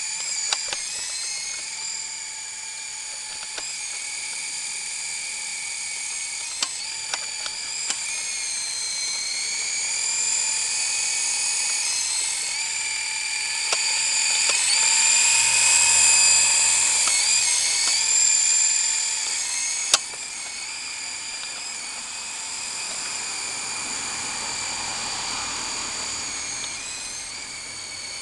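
Syma S033G coaxial RC helicopter's small electric motors and twin rotors whining high-pitched in flight, the pitch wavering up and down. The whine swells loudest about halfway through as the helicopter comes close, then drops back. A few sharp clicks sound along the way, the sharpest a little after two-thirds of the way in.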